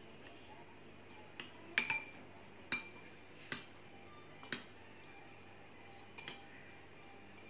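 Metal fork and spoon clinking against a white ceramic plate while a bread roll is turned in beaten egg: about nine light, irregular clinks, some in quick pairs, each ringing briefly.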